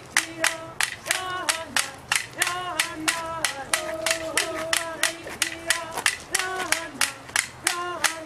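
A traditional Pomo dance song, sung with held notes that step and glide, over a steady, quick clapping beat of about three or four claps a second.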